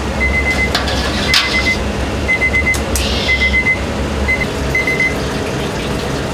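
Busy kitchen noise: a steady low rumble of running equipment under the stockpots, a few sharp clanks of utensils, and a high electronic beep repeating in short bursts about once a second.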